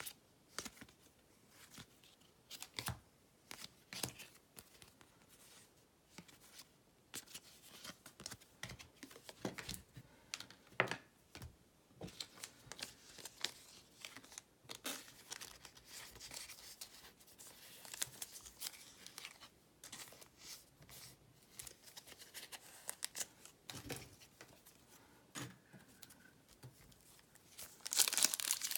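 Trading-card pack wrappers being torn open and cards handled: faint, scattered rustles, flicks and tearing, with louder crinkling of a wrapper near the end.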